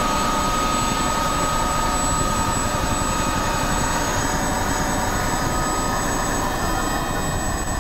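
Helicopter sound: a steady rushing rotor noise with a high whine running through it, easing slightly near the end.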